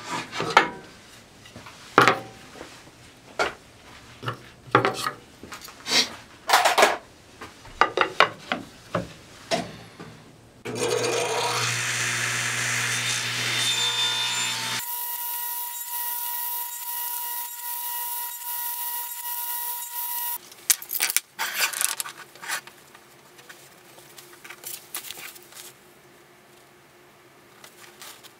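Knocks, clicks and scraping of wood being handled on a table-saw crosscut sled while a wooden hand-screw clamp and stop block are set. About ten seconds in, a table saw starts and runs with a steady whine for about ten seconds, cutting a half-depth notch in a walnut strip, then stops. Scattered lighter clicks follow.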